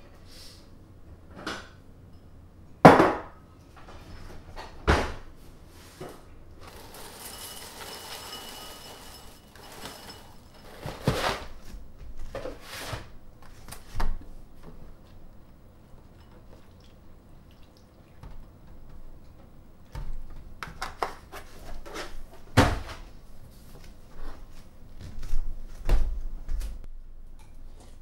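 Kitchen clatter: dishes and kitchenware knocked, clinked and set down on a counter in a string of separate sharp knocks, with a few seconds of steady rustling noise near the middle.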